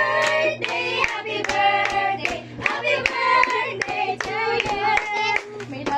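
A small group singing a birthday song together, clapping their hands along to it.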